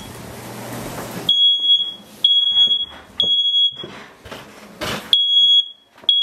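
Smoke alarm sounding, a repeated high-pitched beep about half a second long: three beeps a second apart, a pause, then more. It has been set off by smoke from pan-frying. Before the beeps begin, a steady hiss cuts off abruptly about a second in.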